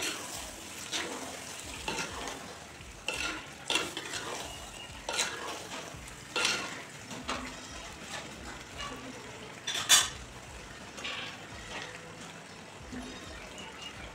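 Metal spatula and spoon stirring chicken curry in a clay pot, with irregular scrapes and clinks against the pot and one louder knock about ten seconds in. The curry sizzles faintly underneath.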